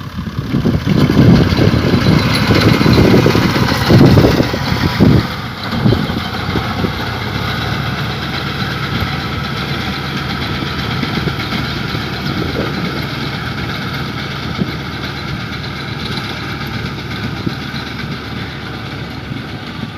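Wheat harvesting machine running with a diesel engine, steady and dense. It is loudest with low rumbling surges for the first five seconds, then settles to an even run.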